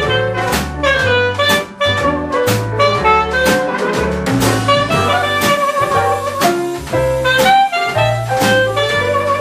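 Jazz band playing: a clarinet carries the melody over double bass notes walking about two a second, with piano and drum kit keeping time.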